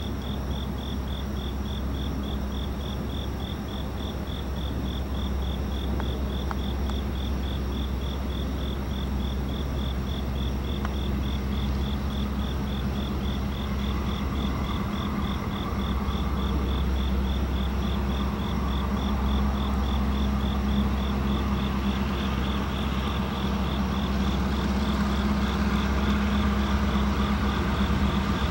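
Diesel locomotives of a pair of EMD GP-series 'Geeps' approaching slowly, their engines' low drone growing steadily louder. Crickets chirp in a rapid, even pulse over it.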